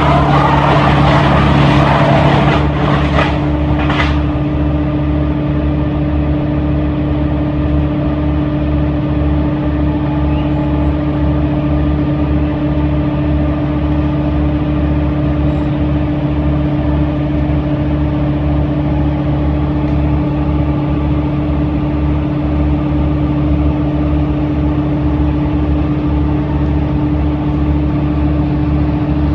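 Large engine of tree-removal machinery running steadily with a constant hum. In the first few seconds a louder, rough, grinding noise rides on top with a few sharp cracks, then stops about four seconds in, leaving the engine running on its own.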